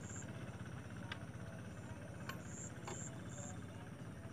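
Hand tractor's diesel engine running steadily, a fast low throb, with a few faint clicks about one, two and three seconds in.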